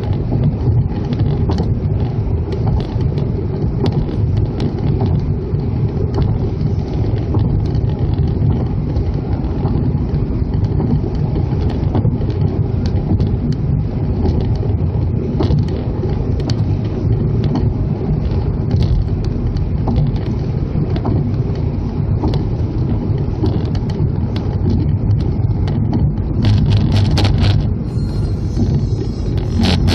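Car driving at highway speed: a steady rumble of tyres and engine heard from inside the cabin. Near the end comes a short stretch of rapid, evenly spaced clatter.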